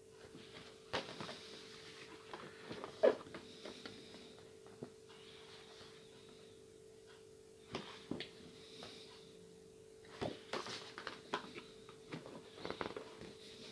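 Printed paper sheets being handled and leafed through: soft rustles and light taps of paper in short bunches, with one sharper snap of paper about three seconds in.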